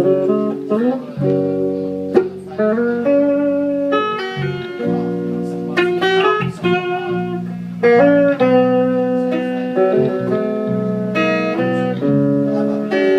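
Live guitar playing a slow instrumental passage of plucked single notes and chords, the intro of a ballad.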